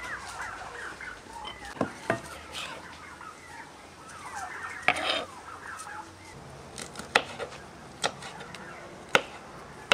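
Domestic fowl calling in short, chirpy clucks and squawks, with sharp knocks every second or two.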